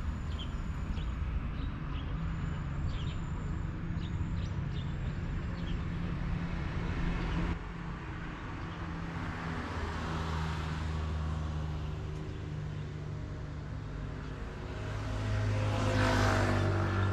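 Road traffic passing: a steady low engine hum, one vehicle going by about halfway through, and a motor scooter passing close near the end, the loudest moment.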